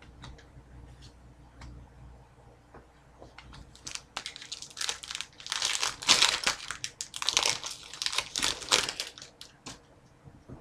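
Foil wrapper of an Upper Deck hockey card pack crinkling as it is handled. A few light ticks come first, then dense crinkling from about four seconds in until shortly before the end.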